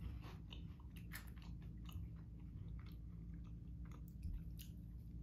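Faint chewing of crunchy, spicy cheese puff balls: an irregular scatter of small crunches over a steady low hum.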